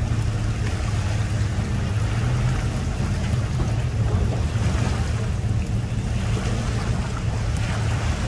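Pontoon boat's outboard motor running steadily under power as the boat is driven up onto its trailer, with the propeller churning water.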